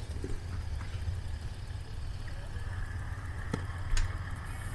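Pickup truck engine idling steadily at a boat launch. Near the end come two short knocks about half a second apart, the second the louder.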